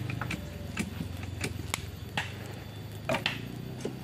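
Open wood fire crackling, with about a dozen sharp pops at irregular intervals.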